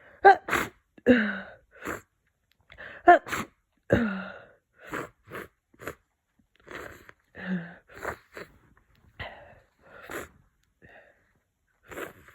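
A person with a head cold giving two congested sneezes, one just after the start and one about three seconds in, followed by repeated sniffing and breaths through a blocked nose.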